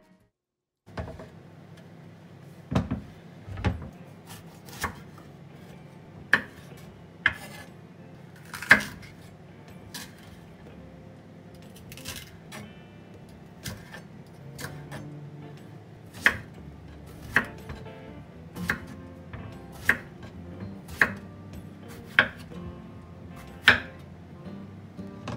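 Kitchen knife chopping green bell pepper and eggplant on a wooden cutting board, sharp knocks of the blade on the board coming roughly once a second, over background music.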